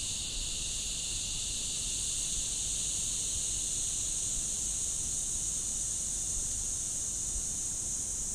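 A steady chorus of insects: an unbroken high-pitched buzz in two layers, the upper one shriller and louder, over a faint low rumble.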